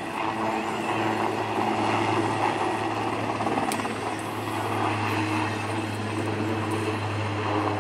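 Helicopter flying a low display pass, its rotors and turbine engines making a steady drone that swells slightly in the first few seconds.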